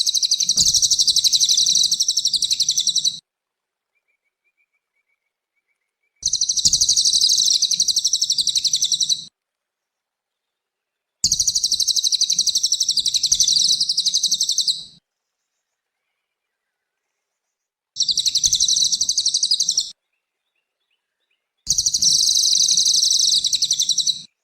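Cililin songbird singing a rapid, high-pitched trilling song in five bursts of about three seconds each, with silent gaps between them.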